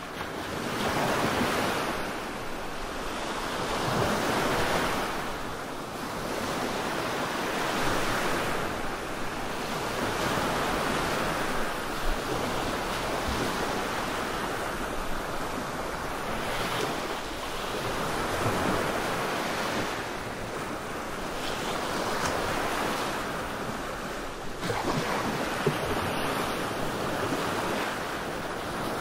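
Relaxation 'black noise' sound track: a continuous rushing noise, like surf, that swells and ebbs every few seconds.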